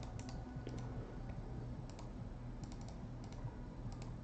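Scattered clicks of a computer mouse and keyboard, single clicks and a quick run of three or four about two and a half seconds in, over a steady low hum.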